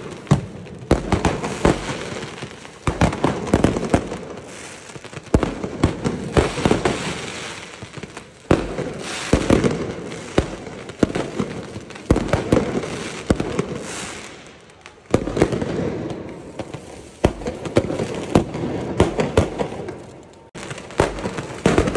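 Mortar fireworks going off in volleys: rapid bangs and crackling in clusters several seconds long, with short lulls between.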